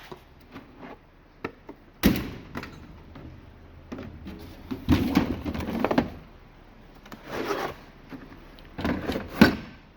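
Tool kits being handled in a toolbox drawer: a sharp thunk about two seconds in, then several bouts of clunking and rattling as cases and tools are moved and set down.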